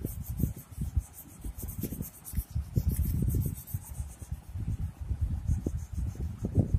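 Crayon colouring on drawing paper laid on a table: quick, irregular rubbing strokes of the crayon and hand against the paper.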